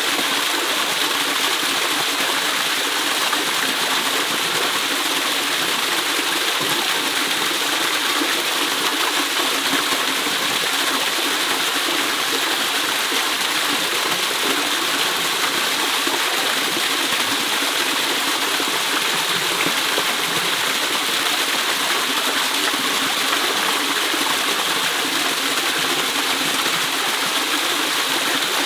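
Small waterfall pouring steadily into a rocky pool: an even, unbroken rush of falling water.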